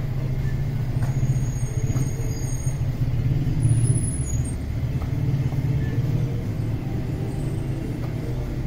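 Steady low rumble of a bakery's conveyor bread oven running, with a few faint knocks.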